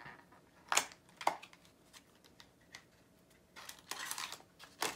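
Small cardboard blind box being handled and opened by hand: scattered short rustles and taps, the sharpest about a second in, then a denser run of rustling near the end.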